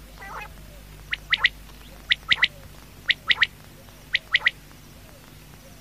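Quail calling: a short harsh call just after the start, then four quick three-note phrases, about one a second.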